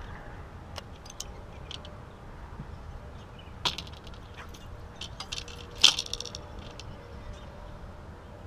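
A few sharp metallic clicks over a low steady hiss, with two louder clinks that ring briefly, about three and a half and six seconds in.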